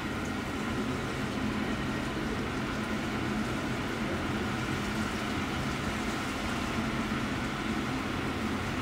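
Steady low hum of a river cruise ship under way, with a constant rushing noise over it and no distinct events.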